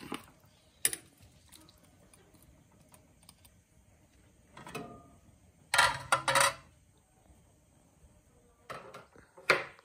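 Metal ladle clinking against a plate and a steel cooking pot as sliced maxixe is tipped in, with the loudest rapid clatter about six seconds in, then a sharp knock near the end as the pot's lid goes on.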